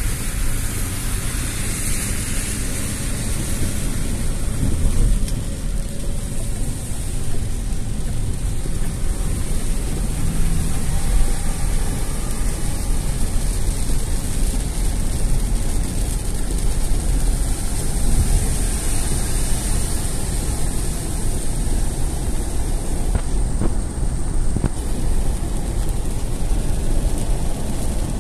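Inside a car driving at speed through heavy rain: rain on the windscreen and roof and tyres on the wet road make a steady hiss over a low rumble.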